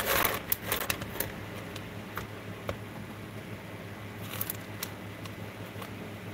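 Light glass clinks and taps as copper-foiled sea glass pieces are handled and knocked together on a tray: a quick cluster at the start and another a little past halfway, over a low steady hum.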